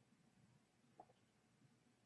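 Near silence: room tone, with one faint short tick about halfway through.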